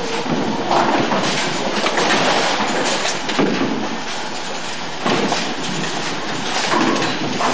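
Bowling alley din: bowling balls rumbling down the lanes and pins clattering, a steady rolling rumble with a sharper clatter about five seconds in.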